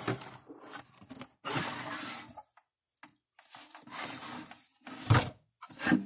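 Plastic case of an Electric Shepherd ESM 2000 fence energizer being handled and its front cover lifted off: scraping, rubbing handling noises in irregular spells, with a sharp knock about five seconds in.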